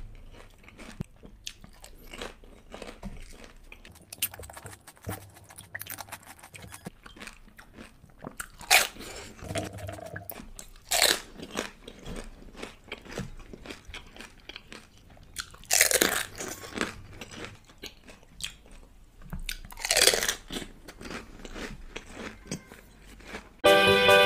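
Crisp, hollow pani puri shells filled with spiced water, crunching as they are bitten and then chewed close to the microphone, with many small crackles. Music with plucked guitar starts suddenly near the end.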